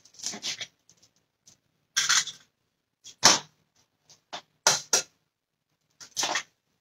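Two eggs cracked one after the other over a glass mixing bowl: a string of short, sharp taps and shell cracks, the loudest about two seconds in and again about a second later.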